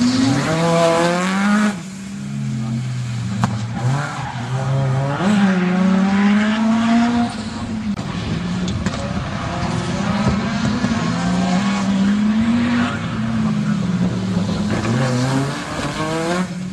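MG Metro 6R4 rally car's three-litre V6 engine revving hard, its pitch climbing in repeated sweeps and dropping back at each lift-off or gear change as the car accelerates and brakes through tight turns.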